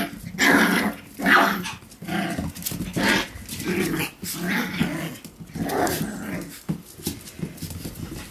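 Six-week-old Pomsky (Pomeranian–Husky) puppies vocalising in play: a run of short puppy sounds about once or twice a second, growing quieter toward the end.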